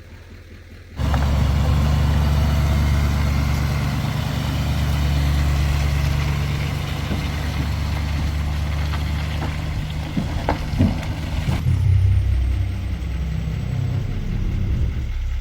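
Truck engine running with a steady low drone that starts abruptly about a second in, with a few knocks and rattles around ten seconds in.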